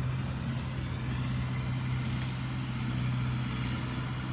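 Steady low engine drone at a constant pitch, with a haze of noise around it.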